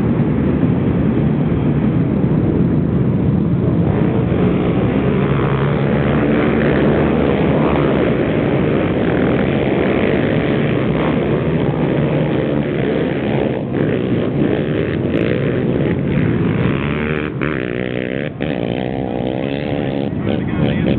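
A row of racing quad ATVs launching off the start line together, many engines running hard at full throttle at once. The din eases a little near the end as they pull away.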